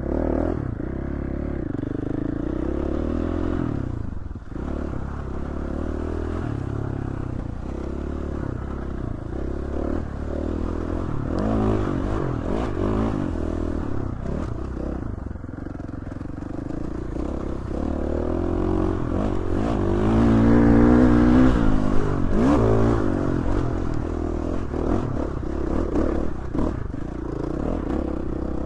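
Dirt bike engine running under riding load, revving up and down through the gears, with clattering and scraping from the bike on rough ground. The revs climb highest and loudest a little past two-thirds of the way through.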